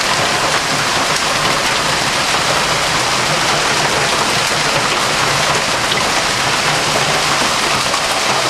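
Heavy hailstorm: hailstones and rain pelting down in a dense, steady din without let-up.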